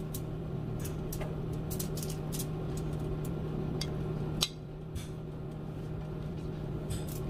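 Steady low hum with scattered light ticks and one sharper click about four and a half seconds in, from a foil-lined comal heating over a freshly lit stove burner.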